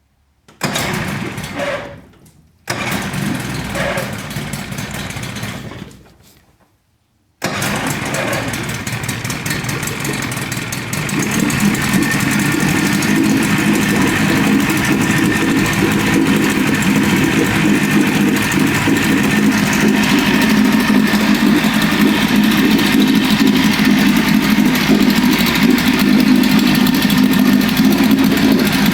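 Freshly rebuilt 1981 Evinrude 25 hp two-stroke outboard being started: it fires in two short bursts that die away, then catches about seven seconds in and keeps running, growing louder a few seconds later and settling into a steady run.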